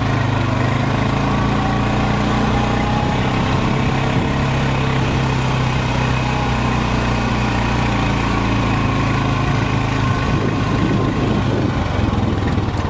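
A four-wheeler's engine running steadily, with a rougher, noisier stretch near the end.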